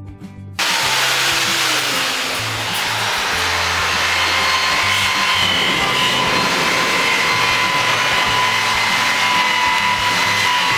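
Electric power tool running steadily, a loud hiss with a thin whine, starting abruptly about half a second in. Background music with a bass line plays underneath.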